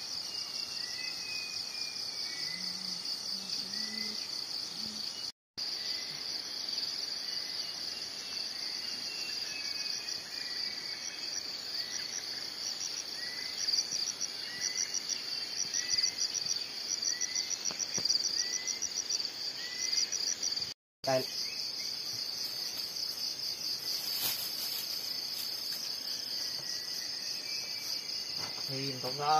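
Dense chorus of forest insects: a steady high-pitched shrill, with a faster pulsing trill over it through the middle, and a softer chirp repeating about once a second lower down. The sound cuts out twice for a split second.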